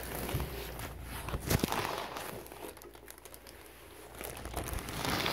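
Packaging crinkling and rustling as a hand digs into a tripod's fabric carry bag and tugs at the wrapped contents, in irregular crackles that are busiest at the start and again near the end.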